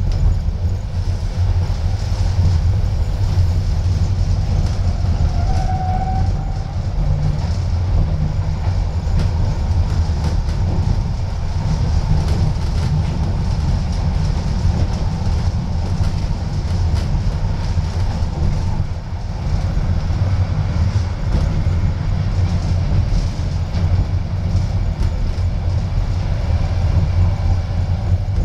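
Inside a moving metre-gauge tram: the steady low rumble of the car's wheels and running gear on the rails, with no pauses.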